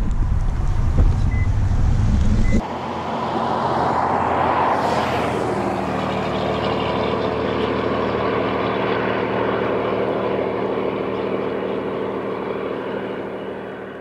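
Wind rumbling on the microphone for the first two and a half seconds, then, after a sudden cut, a steady motor-vehicle hum with road noise that swells about two seconds later and slowly fades out near the end.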